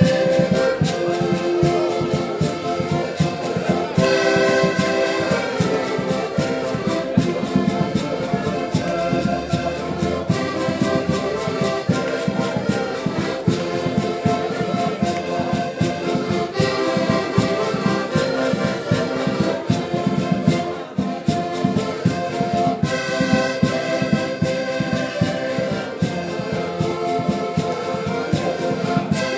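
Several diatonic button accordions playing a Portuguese folk tune together, with a bass drum beating time.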